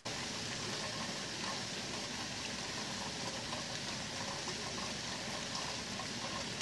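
Heavy rain falling steadily: an even hiss with scattered drop ticks.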